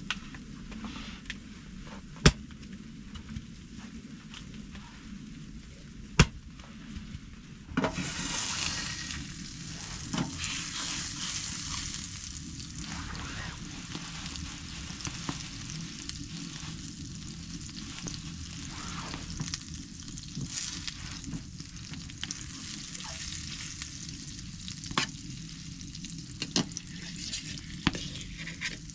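Food frying in a hot pan: two sharp knocks, then about eight seconds in a sudden loud sizzle that carries on, with the clicks and scrapes of stirring.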